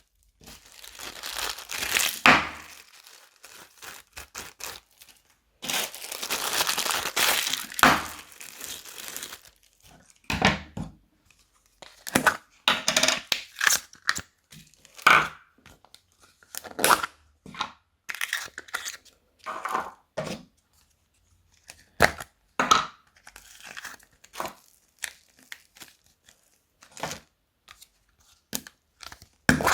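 Plastic bags crinkling and rustling during slime making: a dense stretch for the first nine seconds or so, then short separate crackles.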